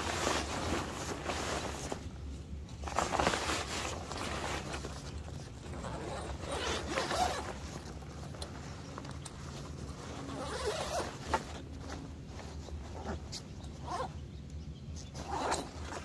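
Irregular rustling and scraping in uneven bursts, with scattered small clicks: the handling noise of gear or clothing being moved about.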